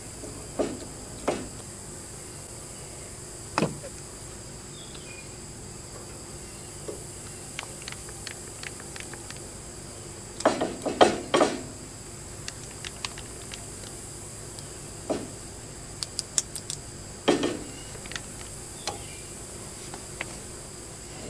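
Scattered metal clicks and knocks from handling a riding mower's steering spindle and greasing it with a hand grease gun, with a dense run of clatter about halfway through and a quick series of sharp clicks a few seconds later. A steady high-pitched insect drone runs underneath.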